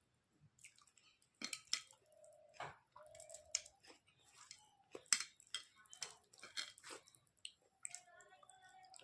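Close-miked mouth sounds of someone eating soft rice and mashed-vegetable chokha: irregular wet chewing and lip smacks.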